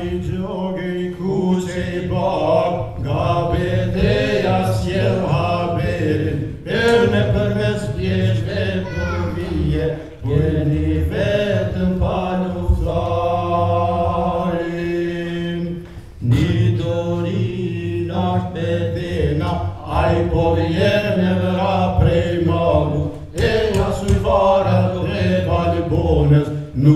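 Men's voices singing a slow, chant-like song together, with long held notes, amplified through a microphone in a hall.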